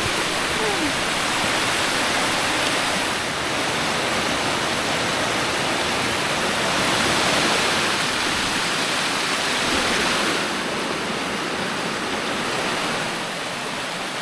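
Waterfall rushing steadily with a full, even roar of water, swollen after days of heavy rain; it grows a little fainter about ten seconds in and again near the end.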